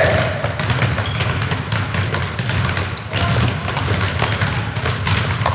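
Many footballs being dribbled by children's feet on a sports hall floor: a busy, irregular run of soft ball touches and thuds, with a low rumble from the hall.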